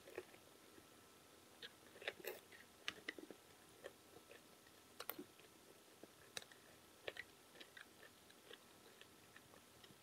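Faint chewing: a person eating with scattered soft mouth clicks and smacks.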